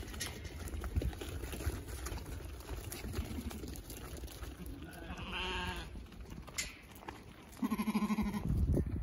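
Ewe lambs bleating twice, once a little past halfway and again near the end, over the patter of hooves on dirt. Wind buffets the microphone near the end.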